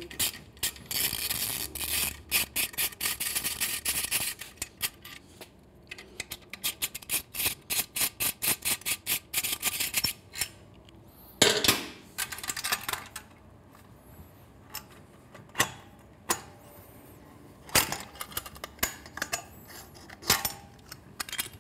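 Ratchet driving a 5 mm Allen hex bit on a motorcycle exhaust bolt: fast runs of ratchet clicks in the first few seconds, a steadier run of clicks about four a second later on, then a few separate metal clinks and knocks of the tool against the bike.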